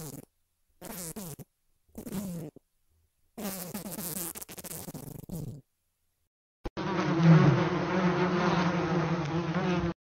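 Flies buzzing, first in short bursts about once a second with a slightly falling pitch, then in one longer burst. After a short gap and a click, a louder, steady, continuous buzz of flies starts about seven seconds in.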